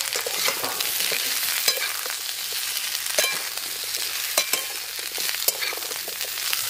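Drumstick pieces, potato, sweet potato and raw banana sizzling in hot oil in a metal kadai, steady and hissing, while a metal spatula stirs them, clinking and scraping against the pan several times.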